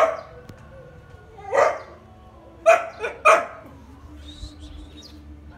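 A dog barking: five short barks, the last three close together about three seconds in.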